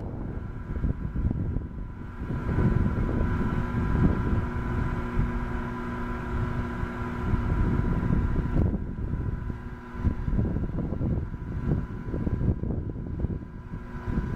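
Wind buffeting the microphone in uneven gusts, with a faint steady drone underneath.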